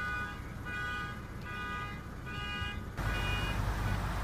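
Car's electronic warning chime inside the cabin of a 2014 Lexus IS350: a chime of several tones repeating about every 0.8 seconds. About three seconds in it gives way to a steady low rumble and hiss.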